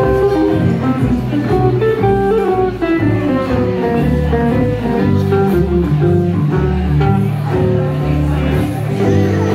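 Live gypsy jazz band playing: acoustic guitars strumming the rhythm over a plucked double bass, with a melody line on top.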